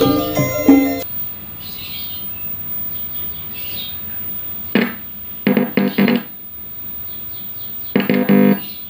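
Background music ends about a second in. After that, the speaker of an old Goldstar CRT TV gives short bursts of mains-hum buzz as tweezers touch points on the sound circuit board. There is one buzz near the middle, a quick run of four just after, and a longer one near the end. This is a touch test for where the sound path is broken, and the buzz shows the stages from the touched point onward pass signal to the speaker. Faint bird chirps sound in the background.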